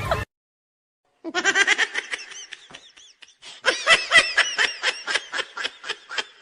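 After about a second of silence, a high-pitched laughing sound effect: quick runs of ha-ha pulses, several a second, with a short break near the middle before a longer run.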